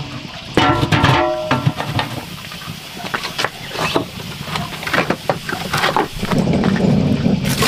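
Scattered knocks and clinks of a large metal stock pot being set down on a stone wood-fire stove, with a brief metallic ringing about a second in, then more knocks as the firewood under it is tended.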